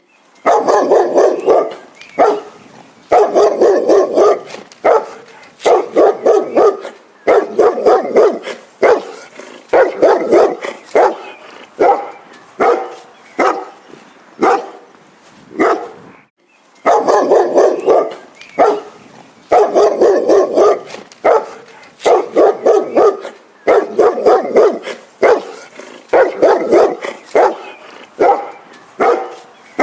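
A dog barking over and over in quick runs of several barks each, with a short break about halfway through.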